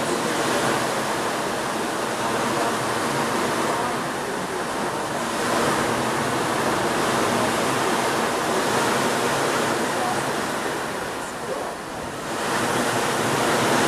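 Steady rushing of wind and sea over a camcorder microphone on a moving ship's deck. Near the end it briefly drops and then comes back.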